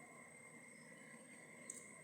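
Near silence: room tone with a faint steady high-pitched hum and one soft click near the end.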